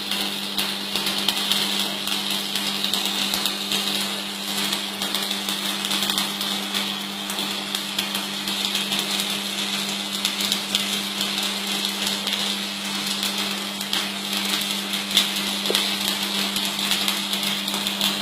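Electric arc welding on steel: a steady crackling arc over a constant low hum.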